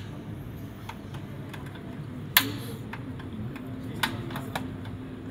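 Piezo igniter of a portable butane cassette stove clicking as it is lit: a few sharp single clicks a second or more apart, the loudest about two and a half seconds in.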